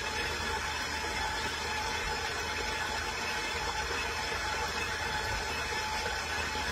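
KitchenAid tilt-head stand mixer running steadily, its motor humming and its flat beater turning through thick banana bread batter as crushed pecans are mixed in.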